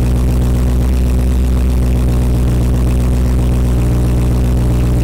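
454 big-block V8 idling steadily on a rebuilt Holley 600 CFM four-barrel carburetor, air cleaner off, during its test run.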